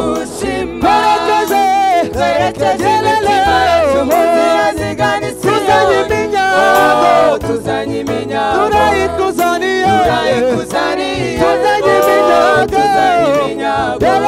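Gospel worship song sung by a group of voices, several lines moving together in melody, with sustained low notes underneath.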